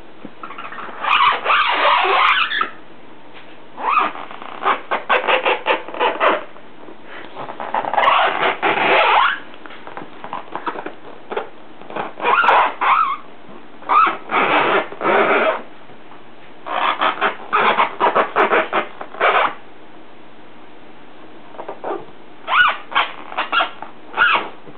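Repeated bouts of scratching on a box, each a second or two of rapid scraping strokes, with short pauses between them.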